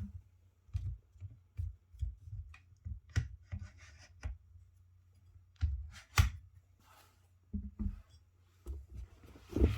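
Handling noise: an irregular string of light knocks, clicks and rubbing as objects are picked up and set down by hand, with one sharp click about six seconds in.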